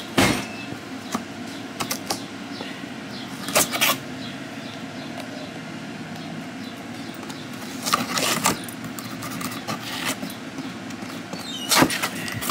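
Cardboard shipping boxes being handled and shifted: a few brief knocks and scrapes, in about four clusters, over a low steady hum.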